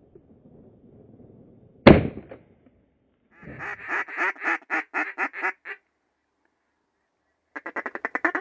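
A single shotgun shot about two seconds in. Then a run of loud mallard-style quacks, about three a second, and near the end a faster string of quacks.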